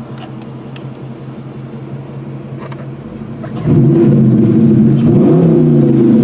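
2006 Dodge Charger SRT8's 6.1-litre Hemi V8 idling, then revved hard a little over halfway through and held at about 3,500 rpm, heard from inside the cabin.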